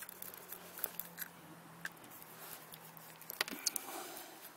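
Faint scattered clicks and ticks of a screwdriver backing out the small bolts from a plastic ATV gas cap, with a sharper few clicks a little past three seconds in.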